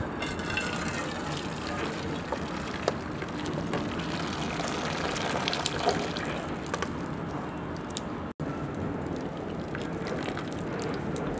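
Starchy cooking water drained from a pot of boiled tapioca, pouring and splashing steadily into an aluminium bowl, with a few light clicks.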